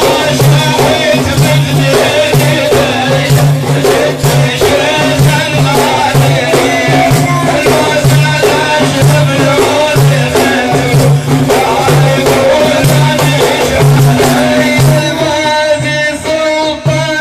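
Sufi dhikr: voices chanting over a steady, quick beat of frame drums, with a low chanted pulse repeating about twice a second.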